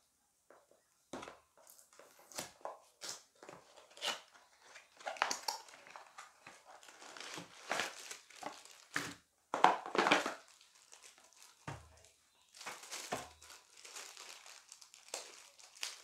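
Plastic packaging bags crinkling and a cardboard box being handled as its contents are unpacked, in irregular crackling bursts that are loudest about ten seconds in.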